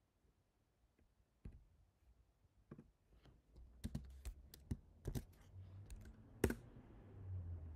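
Scattered computer keyboard and mouse clicks, a few single ones early, a quick cluster about four to five seconds in and a sharper click near the end, over a faint low hum.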